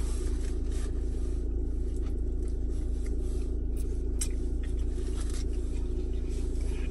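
Steady low hum inside a parked car's cabin, with a few faint rustles and soft clicks from handling a paper food tray of fried chicken.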